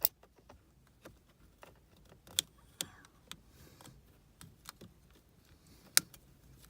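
Scattered small plastic clicks and taps as the push-start button and its wiring connector are handled and the connector's release tab is worked, with two sharper clicks about two and a half and six seconds in.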